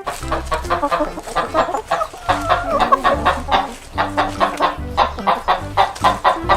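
Chickens clucking in rapid, repeated short calls over background music with a steady bass line.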